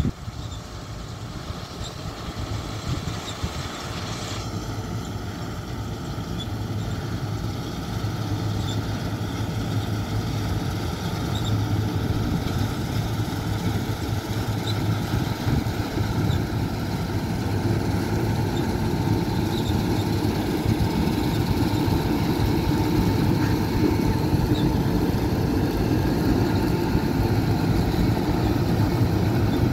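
New Holland TC5050 combine harvester's diesel engine running steadily with a deep hum, growing gradually louder over the stretch.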